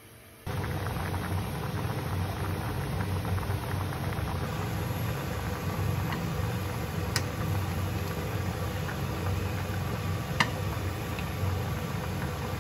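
Pot of gochujang jjigae bubbling steadily on a gas stove while a ladle stirs it, with two light clicks a few seconds apart.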